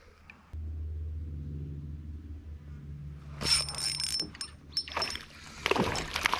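Water splashing and knocking around a kayak, over a low steady rumble.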